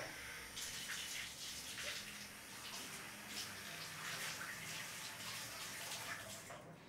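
Water running steadily from a bathtub tap into the tub as the bath fills, stopping near the end.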